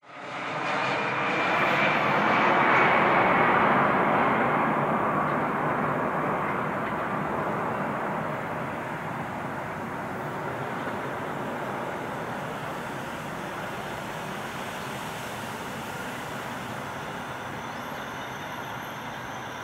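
Jet aircraft passing overhead, loudest about three seconds in and then slowly fading away.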